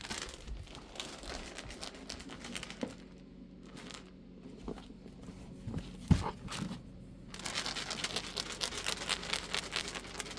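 Crinkling, rustling handling noise, thickest over the last few seconds, with one sharp thump about six seconds in.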